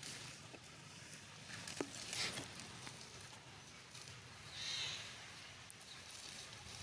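A monkey gives one short, high-pitched squeal a little after the middle, over faint rustling and patter with a sharp click about two seconds in.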